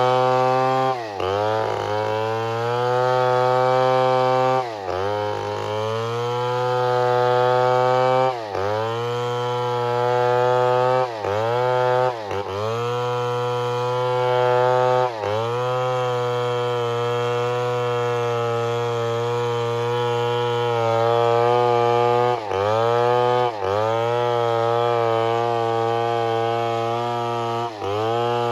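Chainsaw running at high revs through a cut, its pitch dipping briefly and climbing back about every two to four seconds as the throttle is eased and reopened.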